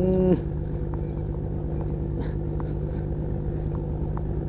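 A motor running with a steady low drone. A short pitched note sounds right at the start, and a few faint ticks come through over the drone.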